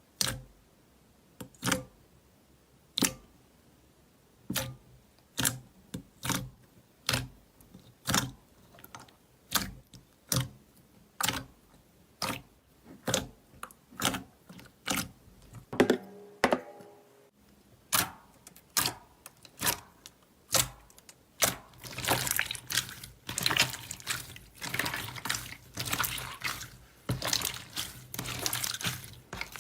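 Slime being played with by hand: sharp wet pops, a little more than one a second, then from about two-thirds in a dense, continuous run of crackling squishes.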